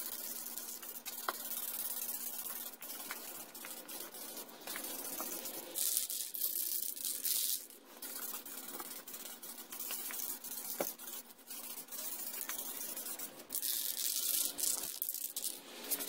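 Aerosol spray-paint can hissing in bursts as a top coat is sprayed on, with two longer, louder bursts about six and fourteen seconds in.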